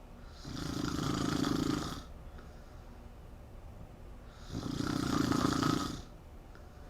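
A woman snoring loudly: two long snores, each about a second and a half, some four seconds apart.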